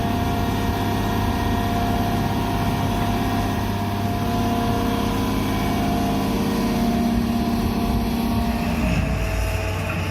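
Heavy forestry machine's engine running steadily under a continuous whine; the sound shifts near the end.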